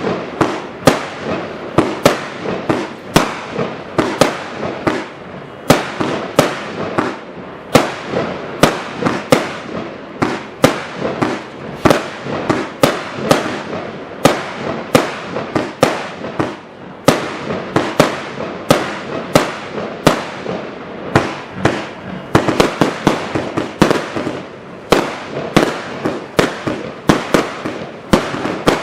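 A 320-shot firework cake firing without a pause: a rapid, even run of sharp bangs, about two or three a second.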